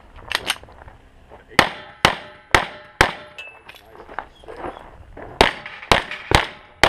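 Pistol shots fired in quick strings during a USPSA stage: about ten sharp reports, half a second or less apart, with a pause of about two seconds near the middle. A short metallic ring follows one shot, typical of a hit on a steel plate.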